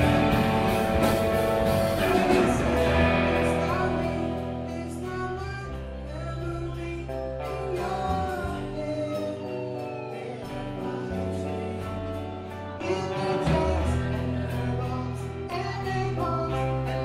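Live song with a singer and guitar. A few seconds in, the music drops back to a softer passage with held, gliding vocal notes, then builds louder again near the end.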